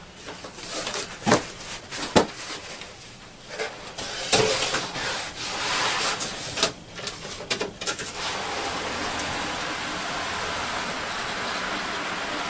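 A cardboard shipping carton being opened and handled, with scattered knocks and rustles. From about eight seconds in comes a steady rubbing as the outer carton is slid up off the box inside.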